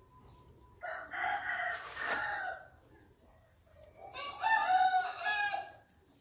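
A rooster crowing twice, one crow about a second in and a second a few seconds later, each lasting a couple of seconds.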